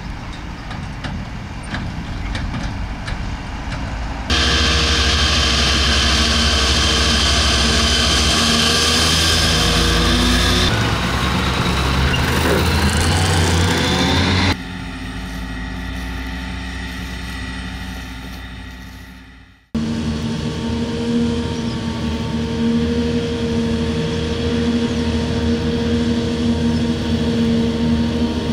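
Diesel farm machinery in a series of separate takes: a tractor driving, then a John Deere self-propelled forage harvester and a silage wagon running loud and close from about four seconds in. The sound falls away, fades and cuts out a little past the middle, and gives way to a steady engine sound with an even pitch.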